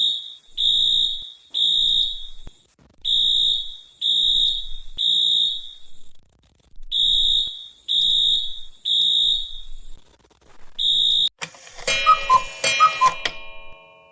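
Fire alarm sounding in the three-beep evacuation pattern: high-pitched beeps three at a time, each group followed by a short pause. It cuts off about 11 seconds in, and a chime rings a few ding-dong notes near the end.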